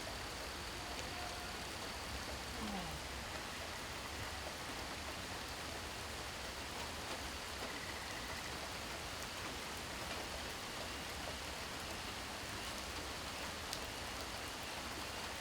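Steady rain falling, an even hiss of drops at a constant level.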